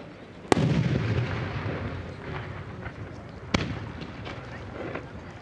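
Aerial firework shells bursting, No. 5 (15 cm) shells. A sharp bang about half a second in is followed by a long echoing tail that fades over a couple of seconds. A second sharp report comes about three and a half seconds in, and a fainter pop near the end.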